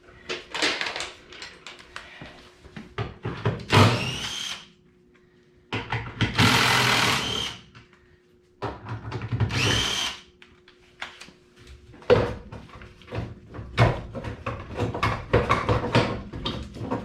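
A power tool driving a 10 mm socket runs in three bursts of one to two seconds, its pitch climbing as each starts, while bolts are taken out during a teardown; clicks and knocks of tools and parts come between and after the bursts.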